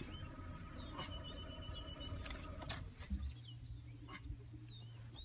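Wild birds chirping in short, scattered calls, with a few sharp clicks and a low steady hum that sets in just after halfway.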